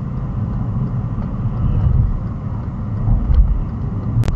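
Inside a moving car's cabin, a steady low rumble of engine and tyres on a wet road. A single sharp click comes near the end.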